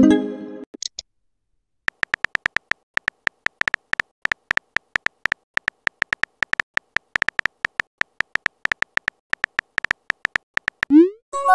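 Texting-app sound effects: a long run of short, same-pitched typing beeps, several a second, as a message is typed out letter by letter. In the first second and again near the end, a rising swoop and a chiming tone sound as a message is sent.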